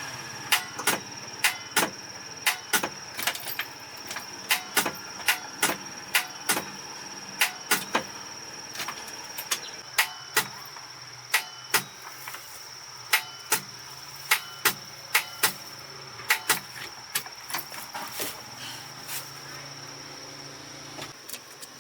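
A long run of sharp knocks or taps, irregularly spaced at about two a second, over a steady high-pitched tone.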